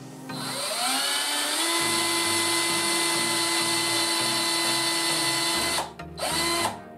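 Black+Decker BCD003C2K 18V cordless drill spinning up with a rising whine and running steadily as its bit bores into a wooden board. It stops about six seconds in, then gives one short second burst.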